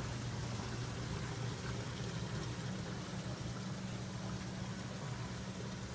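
Water trickling down into a reef tank's sump, a steady gentle splashing over a steady low hum.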